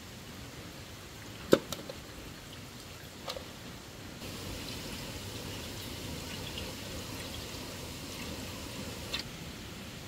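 Steady rain and running water, with a sharp knock about one and a half seconds in and two fainter clicks later. A brighter hiss of falling water joins for several seconds in the middle.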